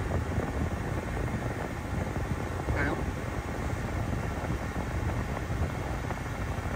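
Rivian R1T's cabin climate-control blower running at full speed on maximum cold, a steady rush of air from the dashboard vents.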